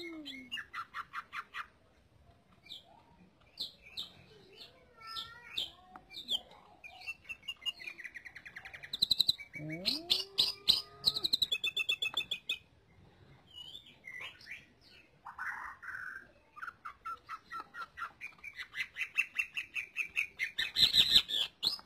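Green leafbird (cucak ijo) singing a long, varied song: fast runs of sharp chirps and trills, broken by short gliding whistles.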